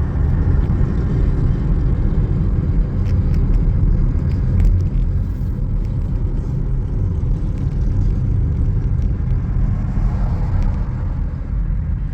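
Steady low rumble of car road noise, heaviest in the low end, with no clear events standing out.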